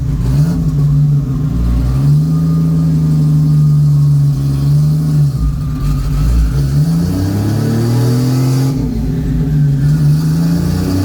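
Turbocharged Toyota 1JZ inline-six in a Corolla wagon running on a chassis dyno. Its engine note holds steady, dips and picks up again several times, then climbs for a couple of seconds near the end.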